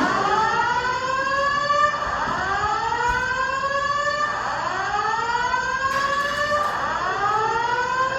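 Simplex TrueAlert fire alarm speakers sounding a whoop evacuation tone: loud rising sweeps, one starting about every two and a half seconds, each overlapping the next.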